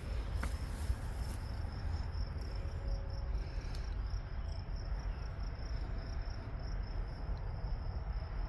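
Insects trilling steadily at one high pitch, over a continuous low rumble.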